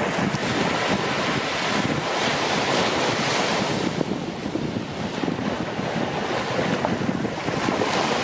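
Sea waves breaking and washing on the shore: a continuous surf that swells about two seconds in and again near the end, with wind buffeting the microphone.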